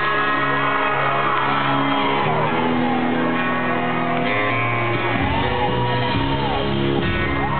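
Live country band playing in an arena, heard from the crowd, with shouts and whoops from the audience over the music.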